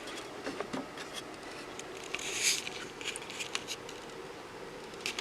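Faint handling noises: scattered light taps and clicks, with a brief rustle about two and a half seconds in, as the wooden slats of a bed base are handled.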